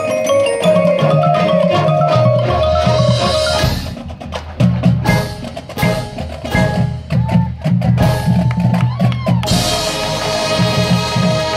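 Marching band field show. Marimbas and percussion play over held notes, then come a few seconds of sparse drum and percussion hits, and about nine and a half seconds in the full band comes back in on a loud sustained chord.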